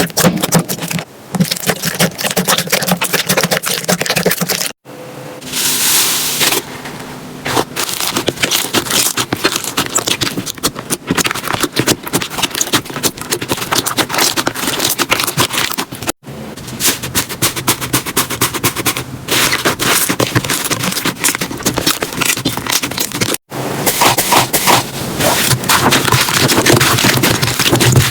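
Slime being squeezed and poked by hand, giving a dense run of fast crackling, popping clicks. The sound breaks off abruptly three times as one clip cuts to the next.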